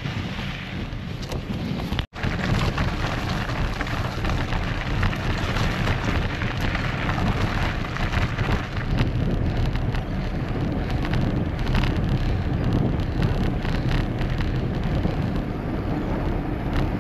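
Wind rushing over the microphone of a camera on a moving mountain bike, mixed with the rumble of the tyres on the trail; the sound cuts out for an instant about two seconds in.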